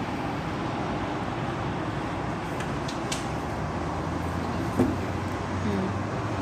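Steady hum of distant city traffic, with a brief knock about five seconds in.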